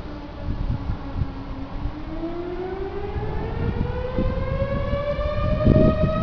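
Federal Signal fire station siren sounding. Its tone holds low for about two seconds, then winds steadily up in pitch. A gusty low rumble runs underneath and gets louder near the end.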